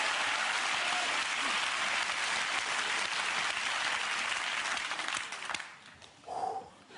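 Studio audience applauding steadily, then dying away about five and a half seconds in.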